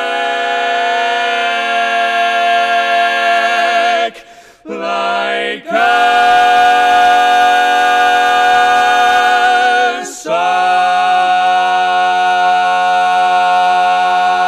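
Barbershop quartet of four men singing a cappella in close four-part harmony, holding long chords: one for about four seconds, a short break and a brief chord, then a long held chord and, after a moment's break near the ten-second mark, another held chord.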